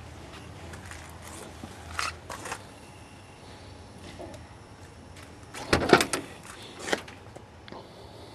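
Cab door of a 1954 Ford F-100 being unlatched and opened: a cluster of sharp clicks and a clunk from its retrofitted GM door latch about six seconds in, with a lighter knock a second later. A few small clicks and knocks come earlier.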